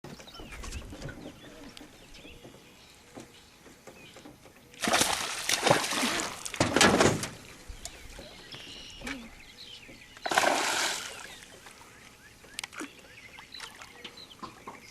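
Hooked largemouth bass splashing at the water's surface during the fight, in three loud bursts about five, six and a half and ten seconds in.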